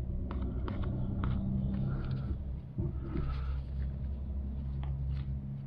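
A steady low mechanical hum, like a motor running, under light clicks and scrapes of a knife scooping butter from a plastic tub and spreading it on soft bread.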